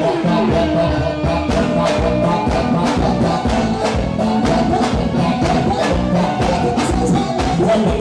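Live band music with a steady drum and percussion beat, and a male singer singing into a microphone over it.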